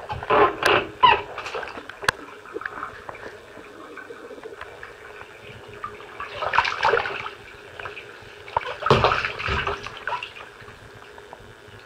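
Shallow water in a bathtub sloshing and splashing as booted legs move in it, in a few short bursts with quieter stretches between, and a single sharp click about two seconds in.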